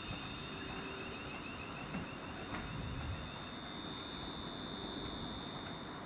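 A steady high-pitched tone with a warbling tone beneath it that stops about three seconds in, over a low rumble.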